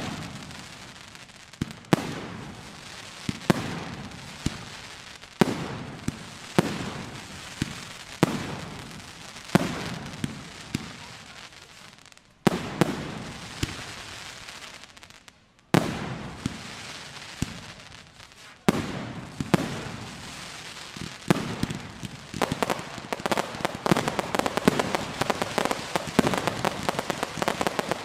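Fireworks display: aerial shells bursting one after another, a sharp bang every second or two, each trailing off. About two-thirds of the way in, a dense crackle of many rapid small pops takes over.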